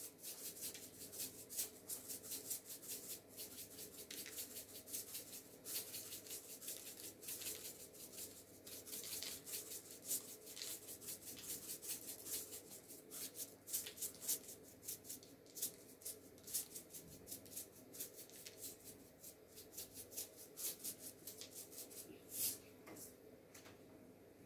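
Sesame seeds shaken from a shaker jar onto dough and baking paper: a faint, fast, uneven run of tiny ticks that thins out near the end.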